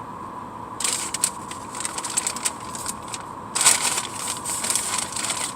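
Paper takeout bag and sauce packets rustling and crinkling as they are handled, with a burst about a second in and a louder one a little past the middle.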